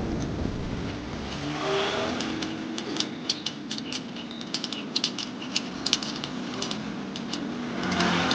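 Irregular sharp clicks and taps from small metal parts being handled while a bicycle hub's gear-side assembly is taken apart. The clicks come thick and uneven from about two seconds in, over a steady low background hum.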